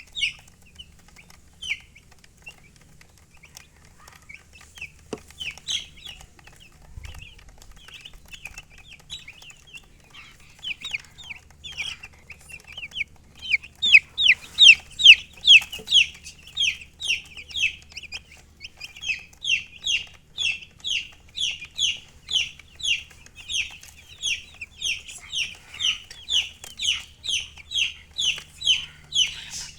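Baby chicks peeping: a long run of short, high, falling peeps, sparse and quieter at first, then steady and louder at about two a second from about halfway through.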